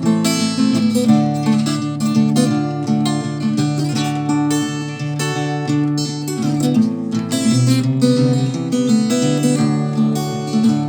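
Acoustic guitar played solo, a continuous instrumental passage of plucked and strummed chords in a folk song.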